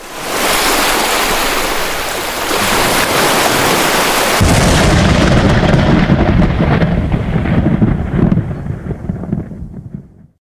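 Explosion-and-fire sound effect: a loud rushing, crackling noise, joined about four and a half seconds in by a sudden deep rumble, all fading away near the end.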